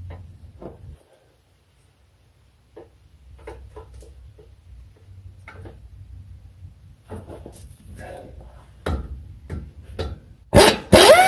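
Faint clicks and knocks of tools and parts being handled, then near the end an impact wrench hammers in short, loud bursts on the front shock's mounting nut, its whine falling in pitch.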